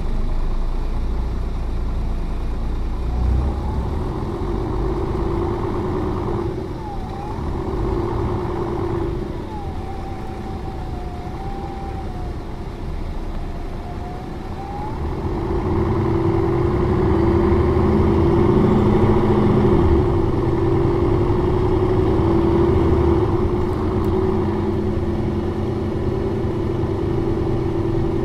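Mercedes-Benz O405N2 city bus's diesel engine and drivetrain running on the move, with a whine that dips and rises in pitch in the first half. About halfway through the engine grows louder and stays so, as under acceleration.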